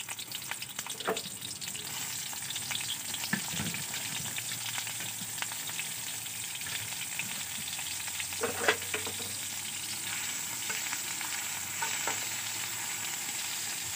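Sliced onions sizzling in hot mustard oil in a kadai, a steady frying hiss, with a few scrapes of a spatula stirring them.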